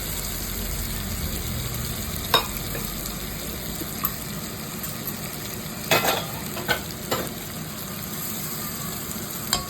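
Chicken, onions and mixed vegetables sizzling as they fry in oil in a pan, stirred with a spoon that knocks against the pan a few times, once about two seconds in and several times around six to seven seconds in.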